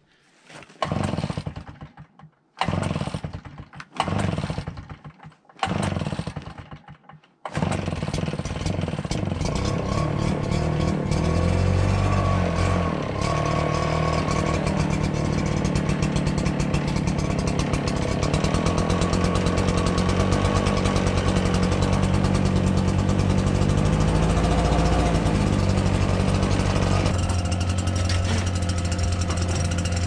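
Gas backpack leaf blower engine sputtering in several short bursts, then catching and running steadily from about seven seconds in, its pitch rising and falling with the throttle. Near the end a steadier engine sound takes over.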